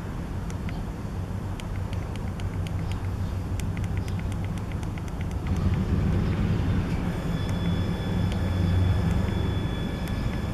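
E-bike hub motor running up under power: a low hum with a fast ticking that quickens, then grows louder, with a steady high whine setting in about seven seconds in.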